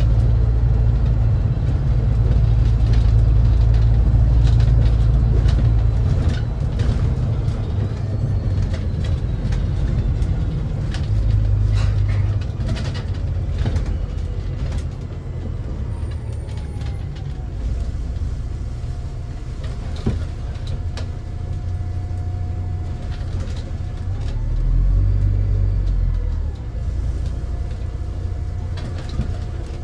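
MAZ-203 city bus on the move, heard from on board: a low engine rumble that swells and eases several times, with frequent rattles and clicks. In the second half a faint whine runs, sliding in pitch now and then.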